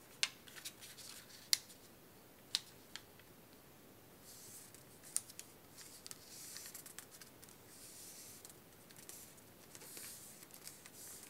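A sheet of origami paper being folded and creased by hand. There are a few sharp paper crackles and taps early on, then soft sliding rustles as the fold is pressed flat.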